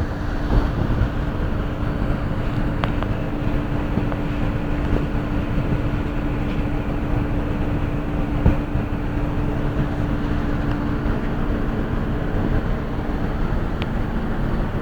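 A boat's engine running steadily under a constant rush of noise, its hum dropping slightly in pitch near the end.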